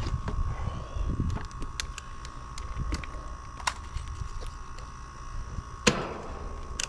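Handling noise as a clamp meter is readied and hung on a condenser's sheet-metal cabinet: scattered clicks and knocks, the loudest a little before the end. A low wind rumble and a steady high tone run underneath.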